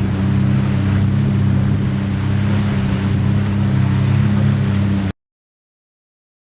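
Sea-Doo Switch pontoon boat's engine running steadily under way, with water rushing and wind noise; the sound cuts off suddenly about five seconds in.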